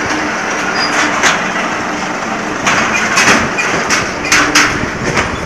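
Concrete block-making machinery running with a steady mechanical din and a low hum, broken by sharp metallic clanks and knocks, a pair about a second in and clusters around three and four and a half seconds in.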